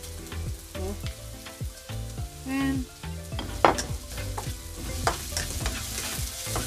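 Onions, garlic and fresh ginger sizzling in olive oil in a wok, stirred with a spatula that scrapes and taps against the pan. The sharpest knock comes a little past halfway.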